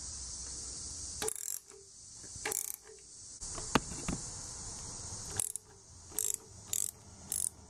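Ratchet wrench clicking in short bursts while a rocker arm bolt is snugged down, pushing the pushrod into a hydraulic lifter to compress its plunger and set preload.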